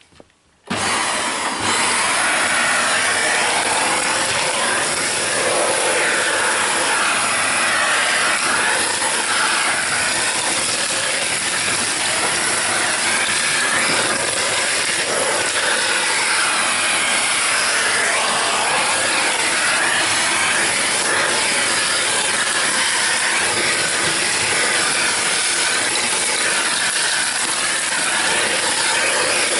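Vacuum cleaner switched on under a second in, then running steadily as it sucks up leftover ash from inside a wood stove.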